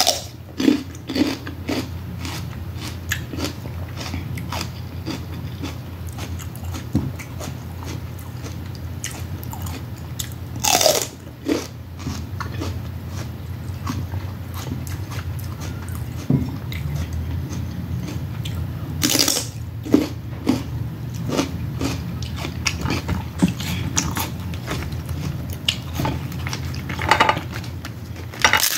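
Close-miked eating of snow crab and Dungeness crab: crab shells and legs cracking and snapping over and over, with chewing and mouth sounds. A few longer, louder bursts come about a third of the way in, two-thirds in and near the end.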